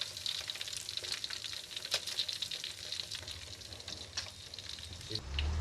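Whole carp deep-frying in hot oil: a steady sizzle with dense small crackles and pops as the fish crisps near the end of cooking. A low steady hum comes in just before the end.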